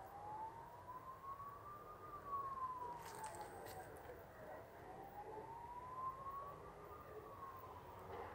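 A faint siren sounding a slow wail, its pitch rising and falling in long sweeps about every five seconds.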